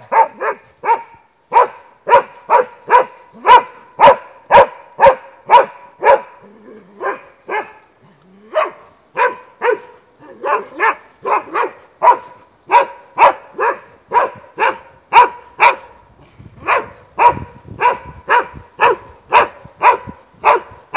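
Slovak hound barking steadily at wild boar: short, loud barks of the same pitch, about two a second, with a brief lull about a third of the way in.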